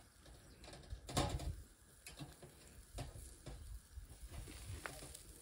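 Faint crackling and sizzling of meat cooking on a grill grate over a wood and charcoal fire pit, with scattered clicks and one louder knock about a second in.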